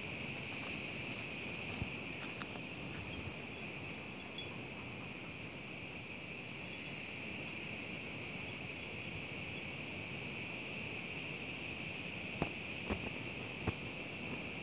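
Steady chorus of insects singing in the trees, a continuous high-pitched buzzing drone that holds at an even level throughout. A few faint clicks come near the end.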